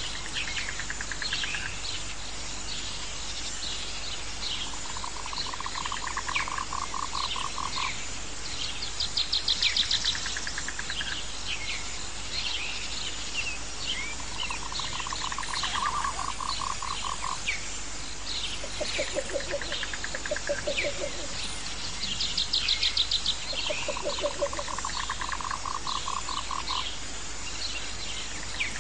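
A nature-sound bed of animal trills and calls: pulsed trills lasting a second or two come back every several seconds, with many short, high chirps over a steady hiss.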